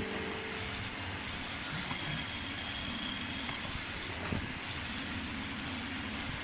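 Benchtop mortising machine running, its motor giving a steady high whine over the rough noise of the cutter chewing into a hardwood chair part.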